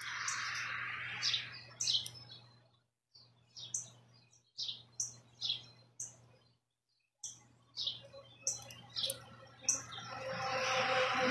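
Small birds chirping in short, repeated high calls throughout. The sound cuts out to silence a few times for a fraction of a second, and near the end a steady rushing noise swells up beneath the chirps.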